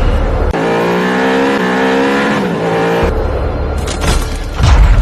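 Looping outro soundtrack of car sound effects: a pitched engine revving that falls off, alternating with heavy deep bass and sharp hits, repeating about every five seconds.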